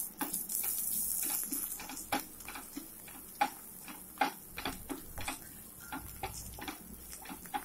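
Spatula knocking and scraping irregularly against a nonstick frying pan while stirring curry leaves and chillies frying in oil, with a sizzling hiss that is strongest in the first second or so.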